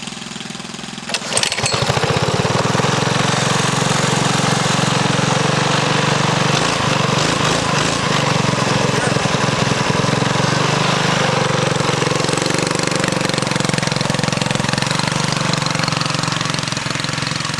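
Custom-exhausted CT200U-EX minibike's single-cylinder engine ticking over, then about a second in opened up and run loud and steady at high revs, easing off slightly near the end.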